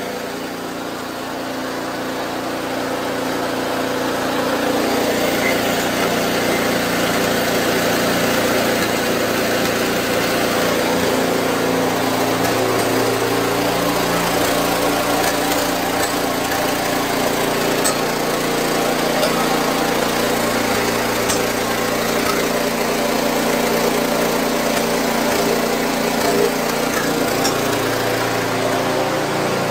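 Snowblower's small gas engine running steadily after a cold start, its sound rising a little over the first few seconds and then holding even.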